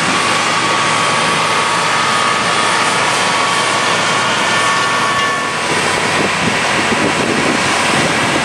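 Case tractor's diesel engine working under load as it pulls a Horsch Pronto 6 DC seed drill up a steep field, a dense steady rushing noise with a faint high whine that fades about halfway through.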